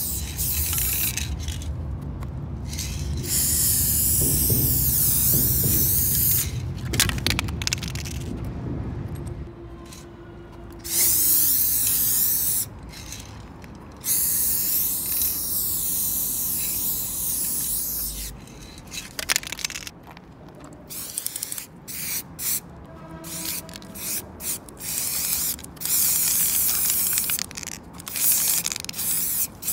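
Aerosol spray paint can hissing in repeated bursts of one to a few seconds each, with short breaks between them, as paint is sprayed onto a wall.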